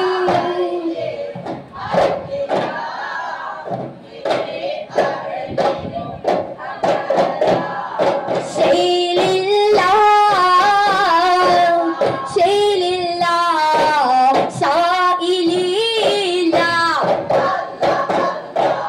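Daf muttu: a group chanting a devotional song in unison while beating daf frame drums in rhythm. Through the first half the drum strokes lead under quieter singing, and from about halfway the singing comes in louder over the drumming.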